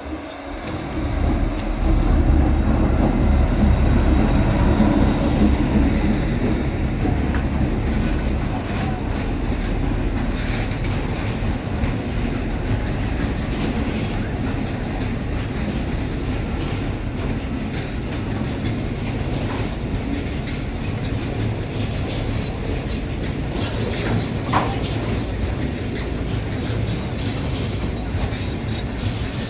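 A train running past on the rails: a heavy low rumble swells about a second in and holds, with wheels clattering over rail joints. A brief high wheel squeal comes late on.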